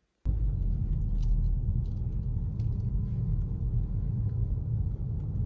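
Steady low rumble of a car's engine and tyres heard from inside the cabin while driving, cutting in abruptly just after the start.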